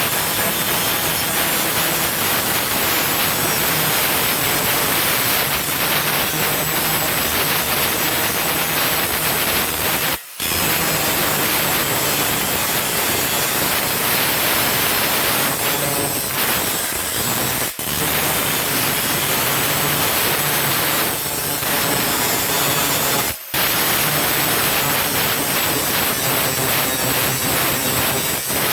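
Power grinder running steadily against sheet-metal welds, grinding them down smooth. The grinding breaks off very briefly three times.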